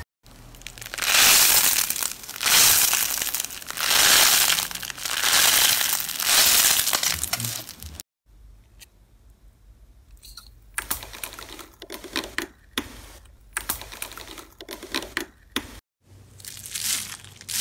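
Hands squeezing a stiff layered sponge in about five long squeezes. After a cut, aluminium foil over a mound of slime crinkles and crackles in sharp clicks as it is pressed. Near the end, a hand presses into a bowl of small foam beads.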